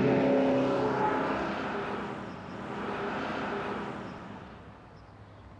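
Bus engine running as the bus drives past and away, swelling again about three seconds in and then fading out.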